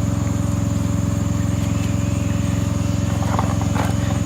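Diesel engine idling: a steady low hum with an even pulse. A few light clicks and rustles near the end, from a box being handled.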